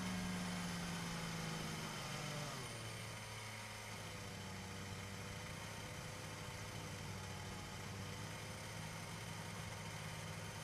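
Mercedes Formula 1 car's turbocharged V6 hybrid engine idling. The revs dip slightly about two and a half seconds in, then it runs steady.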